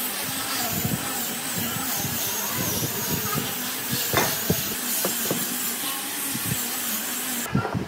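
Steady hissing noise of a running workshop power tool, with a faint wavering whine and scattered knocks of wood being handled. The hiss cuts off abruptly near the end.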